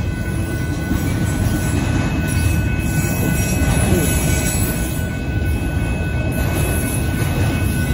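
Freight train of autorack cars rolling steadily past a grade crossing, a continuous loud rumble of wheels on rails, with thin steady high-pitched tones above it.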